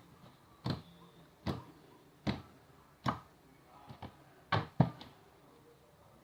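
Homemade slime being worked in the hands, giving sharp smacks or pops about once a second, six in all, the last two close together.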